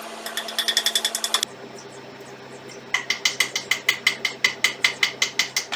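12-volt Makute cordless drill running with its clutch ratcheting: rapid even clicking over the motor's hum, the sign of the clutch slipping as a screw bottoms out. There is a short run of clicks about a second long near the start, then a longer run from about three seconds in, at about eight clicks a second.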